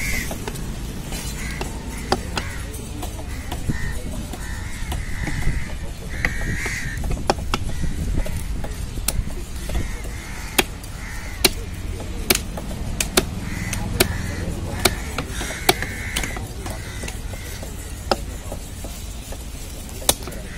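A heavy machete-style knife chopping through fish on a wooden log block, with sharp, irregular chops every second or so, over a steady low market hubbub.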